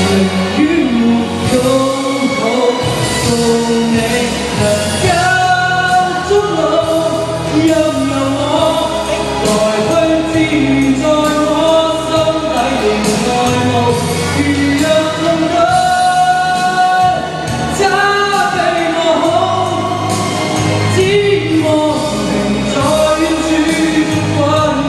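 A young man singing a song into a handheld microphone over musical accompaniment, his voice holding and stepping between notes.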